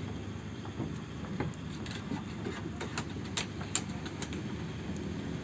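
A run of sharp clicks and light taps, most of them in the middle seconds, over a low steady rumble.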